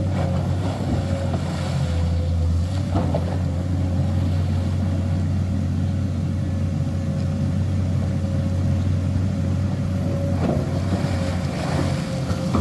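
Komatsu PC210 excavator's diesel engine running steadily under load as the machine works through deep mud, with a thin steady whine above the engine's hum and a few short knocks, most of them near the end.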